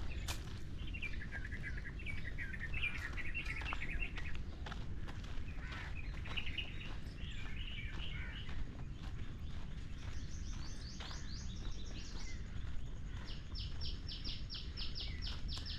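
Birds chirping and calling: warbling chirps, then twice in the second half a fast run of high repeated notes, about seven a second. Regular footsteps on a gravel path underneath.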